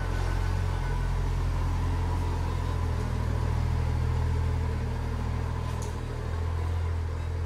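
A BMW N55 turbocharged inline-six runs steadily with a low rumble as the car rolls slowly out of the garage at low speed.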